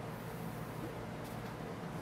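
Steady low hum with a faint hiss underneath, unchanging throughout; no distinct events.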